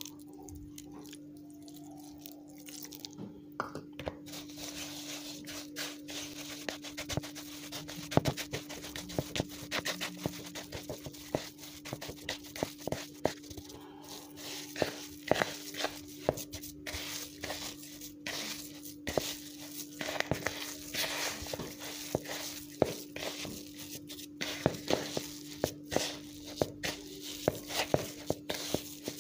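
Hands rubbing and working a crumbly semolina mixture against a plastic basin: gritty crunching and scraping in irregular strokes. A steady low hum runs underneath.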